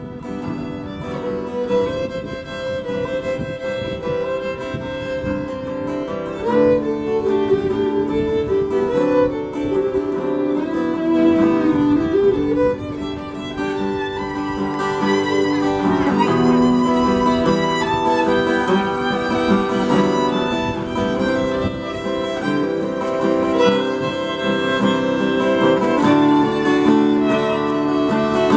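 Instrumental passage of a slow song: a violin playing a melody over guitar accompaniment.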